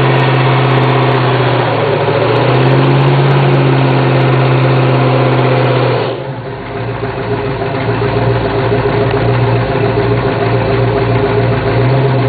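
Early-1970s Ford Mustang's engine held at high revs for a burnout, rear tyre spinning in smoke. The engine note wavers a couple of seconds in. About six seconds in, the revs drop and the sound turns rougher and lower, then builds back up.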